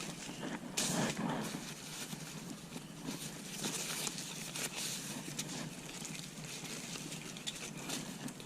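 Rustling and crinkling of packaging, with scattered light clicks and taps, as small carbon fiber turn signal covers are handled.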